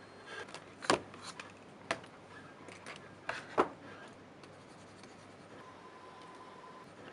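Office desk items being handled: a few sharp clicks and knocks with light scraping and rubbing between them, then quieter.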